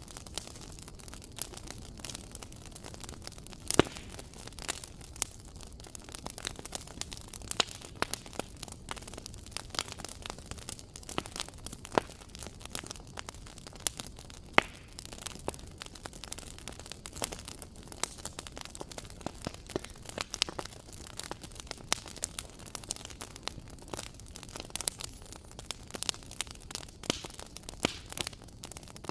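Wood fire burning in a fireplace, crackling and popping irregularly over a steady low hiss, with a few louder pops.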